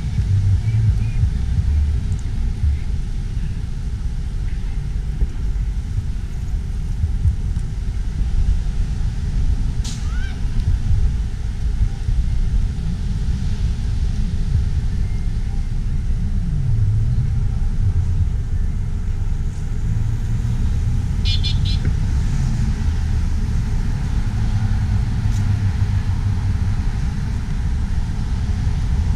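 Steady low rumble of passing road traffic, with a few faint short high chirps.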